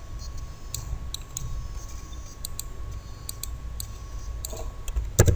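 Scattered, irregular clicks of a computer mouse and keyboard keys as text is selected and pasted, over a faint low hum.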